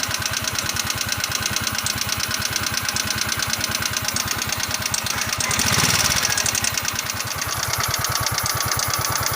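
Yamaha Mio scooter's single-cylinder four-stroke engine idling with a fast, even ticking, which the owner takes for valve tick. About six seconds in, the revs rise briefly and the engine gets louder, then it settles back to idle.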